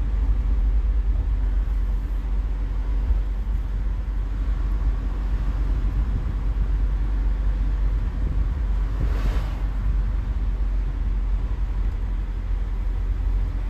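Steady low rumble of engine and tyre noise heard inside a moving vehicle's cabin. A brief whoosh swells and fades about nine seconds in.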